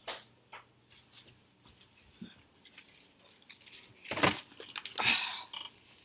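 Paper towels rustling and crumpling in a hand while wiping up a small spill, with scattered small clicks and knocks; the loudest crumpling comes about four and five seconds in.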